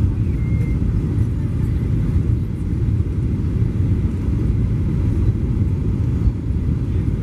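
Steady low rumble of a Boeing 737-900ER's CFM56 engines and airflow, heard from inside the passenger cabin during the landing.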